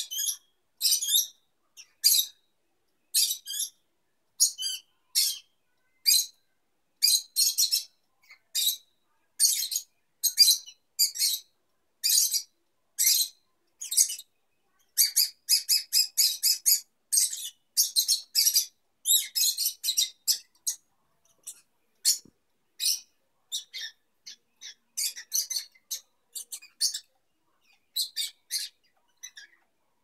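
Rosy-faced lovebirds chirping during mating: short, high-pitched chirps repeated all through, gathering into quick runs in the middle and spacing out towards the end.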